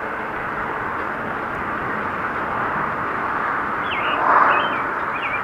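Steady rushing noise of a bicycle ride on a paved trail: wind over the microphone and tyres rolling, with a louder gust about four seconds in. A small bird calls a few quick chirps near the end.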